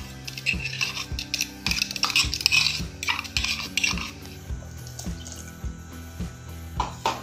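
A steel spoon scrapes and knocks against a mixer jar and the rim of an aluminium pot as ground masala paste is tipped into the saag. The clatter is loudest between about two and three seconds in and dies away after about four seconds, with a few clicks near the end. Background music with a steady beat plays throughout.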